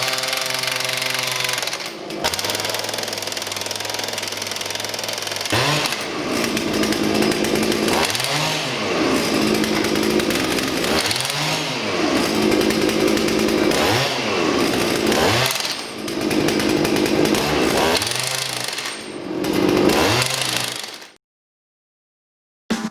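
Petrol engine of a CEMBRE NR-11P portable impact wrench running steadily, then revved up and let back down again and again, every two to three seconds, each time with the rapid hammering rattle of the impact mechanism. The sound stops abruptly shortly before the end.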